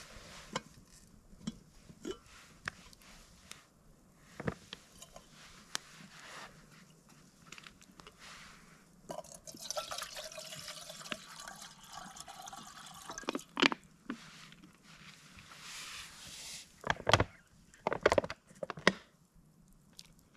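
Water poured from a plastic bottle for about three seconds, rising slightly in pitch as the vessel fills, among light clinks of camp cookware. A few sharp knocks and plastic bottle handling near the end.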